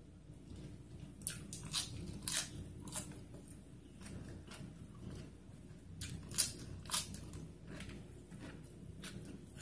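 A person chewing a mouthful of rice and fried tofu, eaten by hand: a string of short, wet mouth clicks and smacks, bunched about a second in and again around six to seven seconds in.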